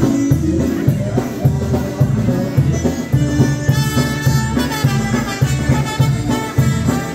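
Live dance band playing trumpet, violin and drum kit over a steady pulsing bass beat. A bright, held melody line comes in more strongly about four seconds in.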